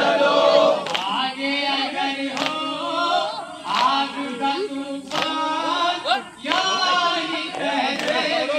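A crowd of Shia mourners chanting a noha together in many voices, with sharp slaps about every second and a half, the beat of matam.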